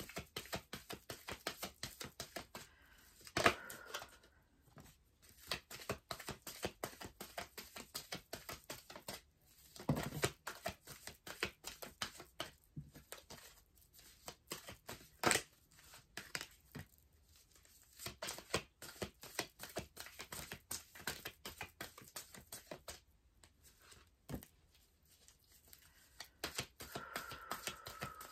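Oracle card deck being shuffled in the hands: a steady run of soft card flicks, with a few louder snaps.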